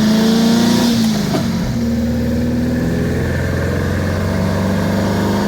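Air-cooled 1600 VW flat-four of a 1977 Brasília, on dual Solex 32 carburettors with 28 mm venturis, pulling under load while driving, heard from inside the car. The engine note dips and breaks briefly about a second and a half in, then runs steady again.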